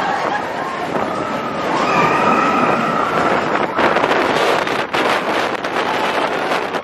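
Roller coaster train clattering fast along its track in the dark, with riders screaming over it during the first few seconds before the rattling noise takes over.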